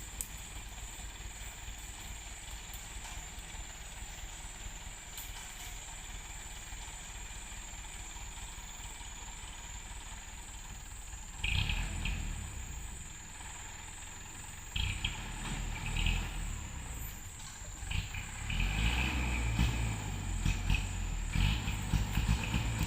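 Truck engine working on a steep dirt climb: a low steady running sound, swelling into louder surges about halfway through, again a few seconds later, and steadily from near the end.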